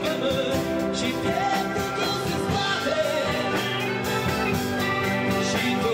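A live folk-rock band playing: a man singing over acoustic and electric guitars with a drum kit keeping a steady beat.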